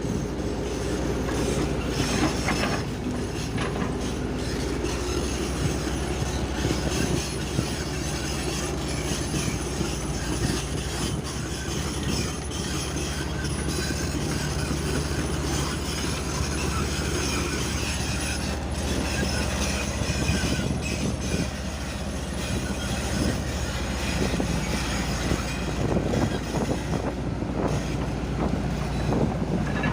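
Hitachi excavator's diesel engine running steadily under work, with scattered metallic clanks and knocks from the machine.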